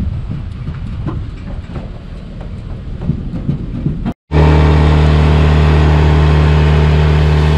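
Boat trailer rumbling and rattling as it rolls down the launch ramp, with scattered clicks. After a sudden cut, a Honda four-stroke outboard motor runs loud and steady at cruising speed, pushing the loaded jon boat across the lake.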